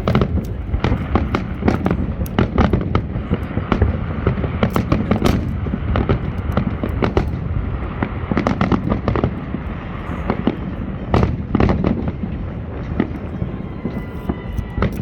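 Fireworks display going off: a rapid, continuous run of overlapping bangs and crackles.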